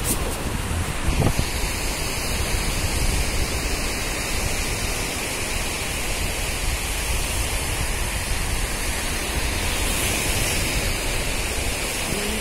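Steady rushing noise of wind blowing across the microphone mixed with surf washing on the shore.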